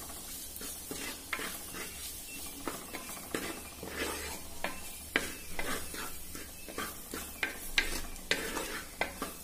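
Vegetables and spices sizzling in a hot pan while a spatula stirs and scrapes them, with frequent short scrapes and clinks of the spatula against the pan over a steady hiss.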